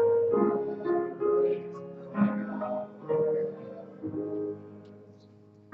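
Piano playing a slow hymn tune in held chords, each struck and left to ring; the sound dies away near the end.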